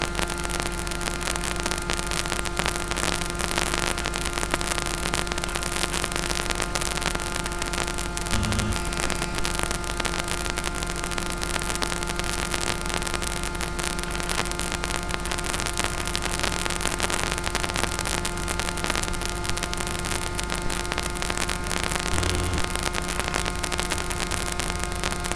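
Steady radio static hiss with constant electrical hum and whine tones from the analogue FPV video link's audio channel, with the plane's motor stopped. Two brief low thumps break it, about eight seconds in and near the end.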